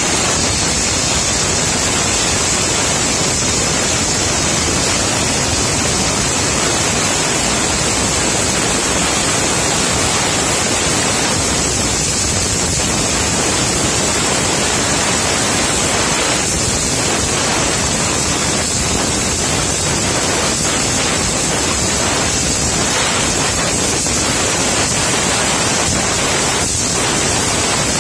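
Plasma cutter with a built-in air compressor (Taiwan Power CUT40B) cutting slowly through thick steel plate: a loud, steady hiss of the arc and air jet, with a strong high edge.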